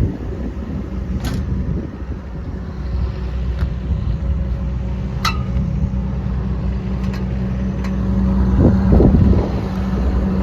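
Komatsu PC200LC-8 excavator's diesel engine idling steadily, sounding healthy. A few sharp clicks sound over it, the loudest about five seconds in, and there is a brief louder rattle near the end.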